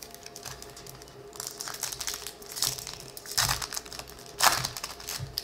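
Foil wrapper of a 2020 Topps Update baseball card pack crinkling in irregular bursts as hands open it, loudest near the end.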